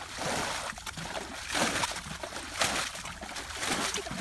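Shallow muddy water splashing and sloshing in irregular surges as children wade and scoop through it with their hands and a basin.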